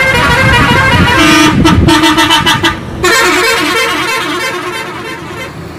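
Tour bus's multi-tone musical air horn playing a melody as the bus drives past, over the low rumble of its diesel engine. The horn breaks off briefly about three seconds in, starts again, and fades away near the end.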